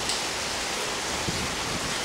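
Steady rain falling in a thunderstorm, an even hiss with a few faint drop ticks, and a brief low thump about a second in.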